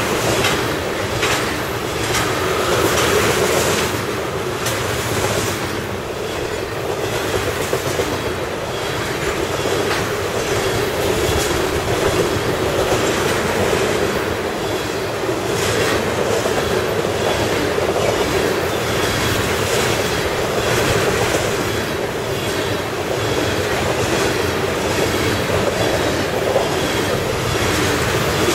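Freight train of tank cars rolling past close by: a steady rumble of steel wheels on the rails, with repeated clicks as the wheels cross rail joints.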